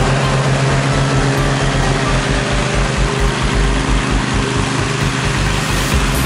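Zero-turn riding mower's engine running steadily as it drives across the lawn.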